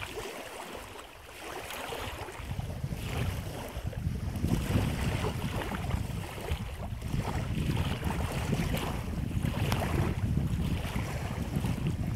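Wind buffeting the microphone, a steady low rumble that sets in about a second and a half in, over water lapping and rippling at the shallows.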